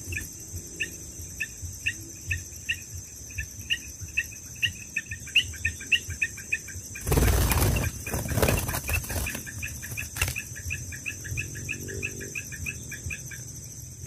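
Albino sooty-headed bulbul flapping its wings while held in the hand: a loud flutter of about a second midway, then a few shorter flurries. Behind it, a steady high insect drone and crickets chirping regularly, about three chirps a second.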